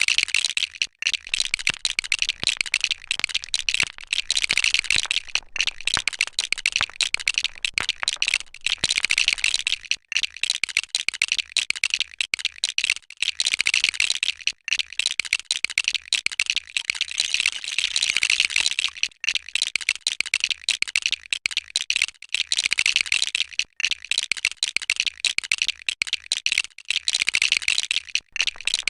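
Plastic LEGO bricks clattering and clicking as they are handled and pressed together: a dense, rapid rattle of small clicks with a few brief pauses.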